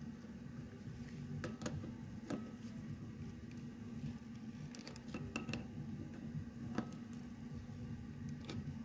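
Scattered light clicks and taps of hand tools on a metal AN hose fitting as it is tightened onto braided hose, over a steady low hum.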